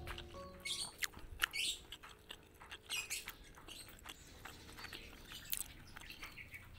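Faint eating sounds from a banana-leaf rice parcel: scattered small clicks and short squeaky scrapes. The background music fades out just after the start.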